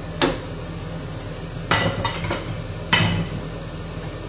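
Three sharp metallic clanks of kitchenware against a stainless-steel saucepan, the second and third ringing briefly, over a steady low hum.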